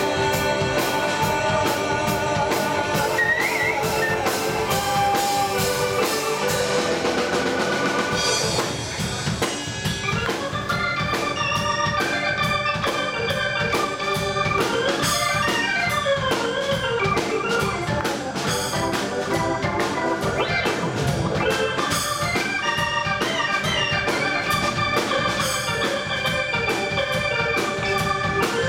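Live rock band playing an instrumental section: a keyboard lead carries the melody over drums and bass guitar, with no singing. The low end drops back briefly about eight seconds in, then the full band comes back in.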